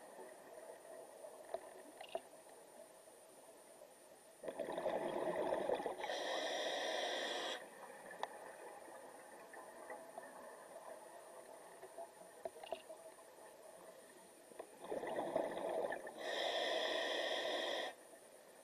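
A scuba diver breathing through a regulator underwater: two breaths, each a hiss of about a second and a half followed by a burbling rush of exhaled bubbles of about the same length. A few faint clicks and ticks fall between the breaths.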